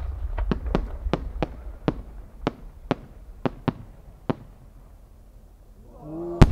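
A string of about a dozen sharp firework cracks over the first four seconds, then a lull. Near the end, crowd voices rise as a No. 8 peony shell opens, and its loud bang arrives just before the end.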